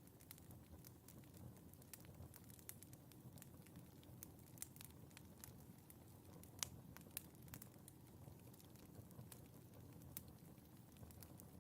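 Faint wood fire in a fireplace crackling, with scattered sharp pops and snaps over a low, steady rumble of flame; the loudest pop comes a little past halfway.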